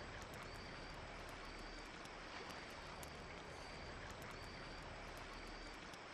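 Faint evening outdoor ambience: a low steady hiss with a short high chirp repeating about once a second.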